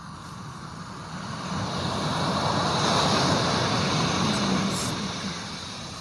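Ocean-wave nature sound playing from a white noise machine's small speaker: a rushing hiss that swells to a peak about three seconds in and then ebbs away, like one wave coming in.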